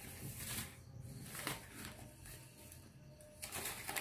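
Faint rustling of newspaper as rice flour is tipped from it into a bowl of batter, in soft bursts about once a second, louder near the end.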